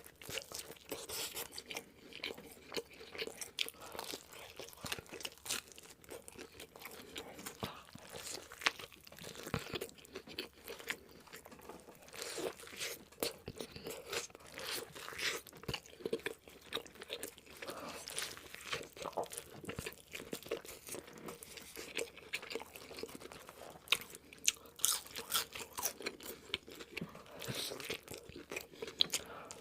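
Close-miked ASMR eating sounds: a person biting and chewing crunchy food, with many sharp crunches in quick irregular succession.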